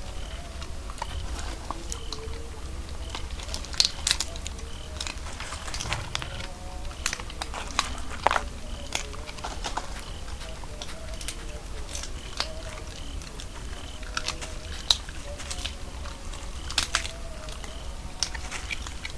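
A hedgehog rummaging and chewing in dry litter: irregular crackles, clicks and rustles over a steady low hum.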